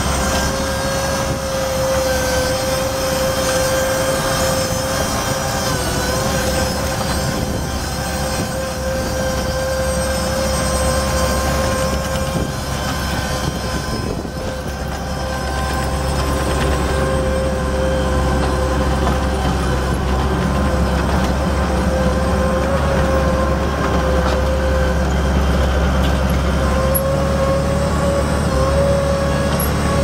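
The Cummins four-cylinder diesel engine of a 1993 Blaw-Knox PF410 tracked asphalt paver running while the paver drives on its tracks, with a steady whine over the engine.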